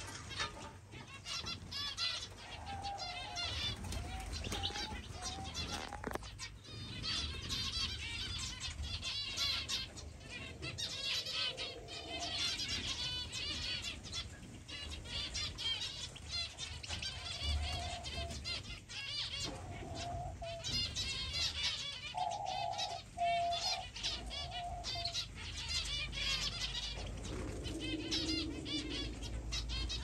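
A crowded aviary flock of zebra finches and canaries chirping and chattering without pause, a dense mass of rapid high calls, with wings fluttering among the perches. A few short, lower, held calls stand out now and then.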